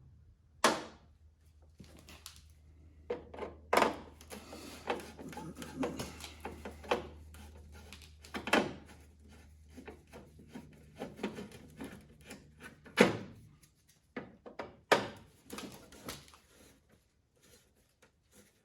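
Hands working on a truck's plastic turn-signal housing: irregular clicks, knocks and rattles of plastic parts and a screwdriver being handled. A low steady hum runs underneath and stops about two-thirds of the way through.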